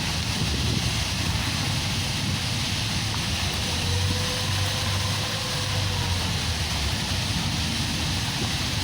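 Steady rushing roar of a waterfall, with deep rumble and a bright hiss.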